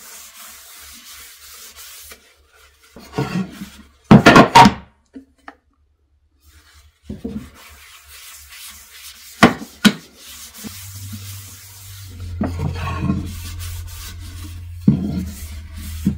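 Paper towel rubbing mineral oil into a hardwood cutting board, soft and scratchy, broken by a few sharp knocks as the board and oil bottle are handled on the wooden workbench: one loud burst about four seconds in and two close knocks near ten seconds.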